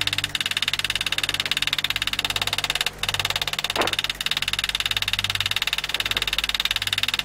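Rapid, evenly spaced taps of a hammer driving a hand graver into steel plate, cutting a groove.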